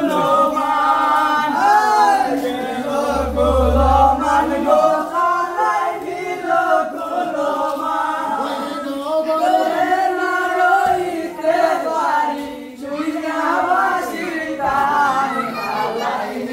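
A group of voices singing a Sylheti dhamail folk song together in chorus, in long sustained lines.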